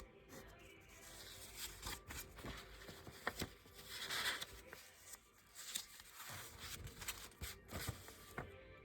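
Handling noise: scattered light clicks and knocks, with a brief rustle about four seconds in.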